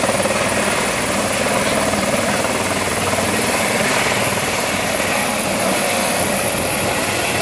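A single-engine light helicopter with a shrouded tail rotor running at close range as it lifts off: the rotor's beating with a steady high turbine whine over it.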